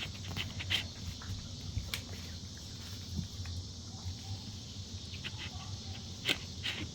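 A dog licking and eating whipped cream, with irregular wet clicks and smacks of its tongue and mouth.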